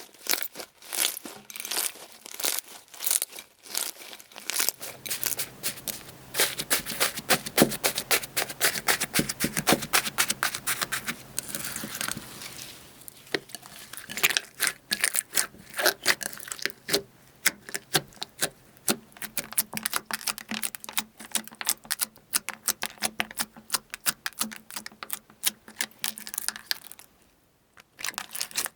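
Close-up crackling and popping of slime being squeezed and stretched by hand, a rapid, uneven run of small clicks and snaps. It breaks off for a moment near the end, then starts again.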